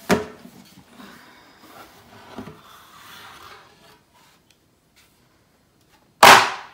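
Cardboard bag box being opened by hand: a sharp knock, then the lid rubbing and sliding for a few seconds with a second knock. Near the end comes a loud, brief rustle of wrapping paper.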